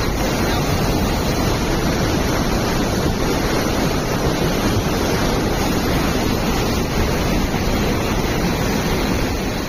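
Muddy river in flood rushing and churning through its channel in standing waves: a steady, loud rush of water.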